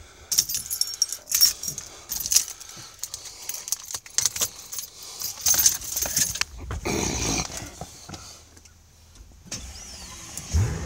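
A bunch of car keys jangling and clicking as they are handled, in a run of short rattles. Right at the end the car's engine begins to start.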